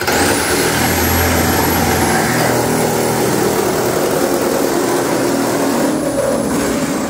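Reciprocating saw cutting across the sheet-steel floor of a pickup bed. It is loud and steady, with a high motor whine that rises as it starts suddenly and winds down as it stops near the end.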